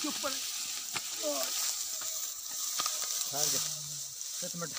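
Dry harvested wheat straw crackling and rustling as a large sheaf is gathered up off the stubble and lifted onto a man's head, with scattered sharp snaps in the crackle.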